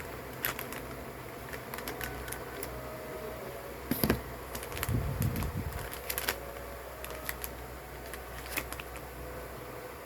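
Handling noise from opening a box of herbal plasters: scattered light clicks and taps of packaging, with a louder knock about four seconds in and a brief rustle after it.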